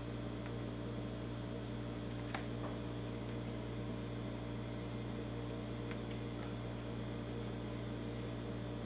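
Steady low electrical hum, with one faint, brief handling noise about two and a half seconds in.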